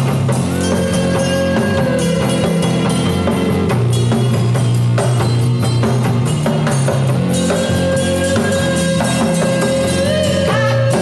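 Indie rock song in an instrumental stretch: drum kit beat and bass, with a long held note over them, near the start and again from about two-thirds of the way in.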